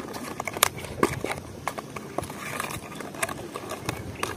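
Clear plastic lure packaging crackling and clicking as it is handled and pried open by hand, in a quick irregular series of sharp clicks.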